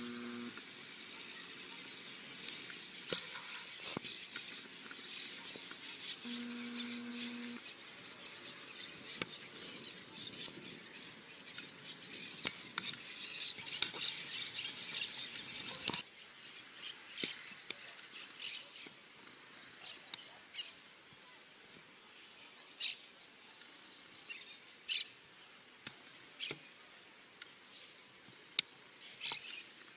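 Birdsong: a dense chorus of chirping birds for about the first half, then scattered single chirps and calls after an abrupt change about 16 seconds in. Two short, low, steady tones sound, one near the start and one about six seconds in.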